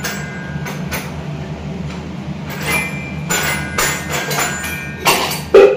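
Vadai batter frying in hot oil in a kadai, a steady sizzle, with scattered light clicks and knocks of utensils and a louder knock near the end.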